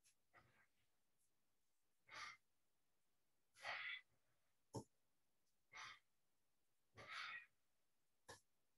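A person's breathing: short, audible breaths, about six of them at a steady pace of one every second or so, in time with swinging-arms qigong.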